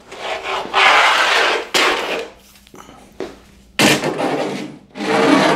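Long metal quilting-frame track sliding and scraping along the frame as it is laid on: a scraping slide of about two seconds with a knock, then two shorter scrapes with clunks about four and five seconds in.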